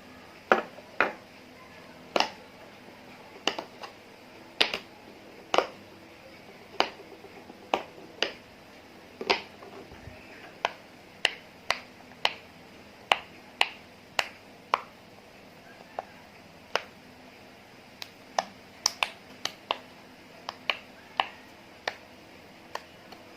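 Slime being mixed by hand, giving sharp, irregular clicking pops as air pockets burst, about one or two a second.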